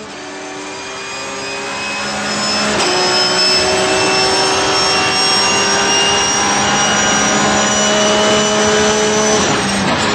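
Race car engine running at high revs, fading in over the first few seconds, its pitch climbing slowly and evenly, then changing near the end.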